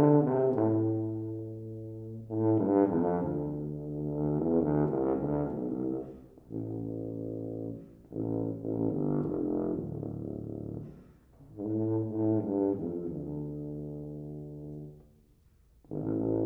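Unaccompanied solo tuba playing a slow passage of held low notes, in phrases separated by short pauses.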